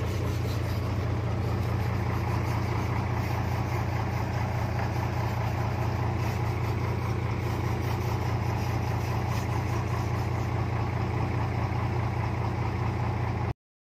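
Mitsubishi Fuso 6D15 inline-six diesel, swapped into a 1968 Toyota truck, idling steadily. The sound cuts off abruptly near the end.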